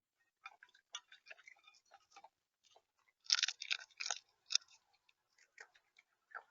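Seed being pecked and crunched on a bird feeder right at the camera's microphone: irregular sharp taps and crunches, with a quick cluster of louder ones about halfway through.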